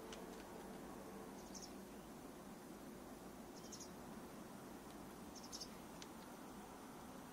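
Quiet outdoor background with a few faint, brief high-pitched chirps, about one every two seconds, the loudest near the end. A couple of faint clicks are also heard.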